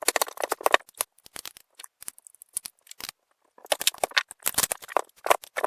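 Quick runs of light clicks and rattles, in two spells with a pause between: the plastic housing and screws of a cordless reciprocating saw being handled as it is screwed back together.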